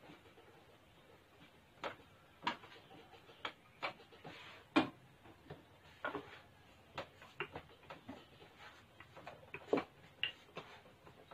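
Irregular light knocks and taps of a wooden rolling pin and hands working dough on a floured wooden table, with one louder knock about five seconds in.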